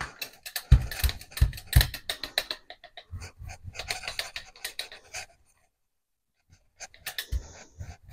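Soft rubber brayer rolling acrylic paint back and forth across a gel printing plate, inking the plate by blending gold into blue: a rapid crackling with a few soft thumps in the first two seconds. It stops about five seconds in and starts again about a second and a half later.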